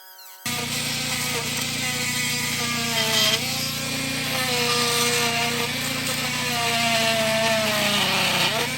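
Oscillating multi-tool cutting wood, trimming the uncut wood a circular saw left in the corners of a wooden stair stringer. A loud, steady buzz with a whine that wavers in pitch as the blade loads up, starting abruptly about half a second in.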